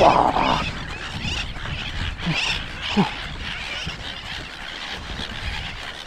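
Many seabirds calling at a nesting colony, heard over a steady low rush of wind on the microphone. There is a short louder noise right at the start.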